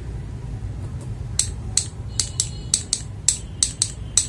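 Unlubricated mechanical keyboard switches being typed on one after another, a sharp clack on each keystroke. The clacks start about a second and a half in and come two to four a second, over a low steady hum.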